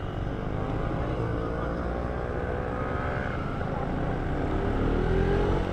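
KTM RC sport bike's single-cylinder engine pulling under acceleration, its pitch climbing gently twice, over a steady rumble of wind and road noise.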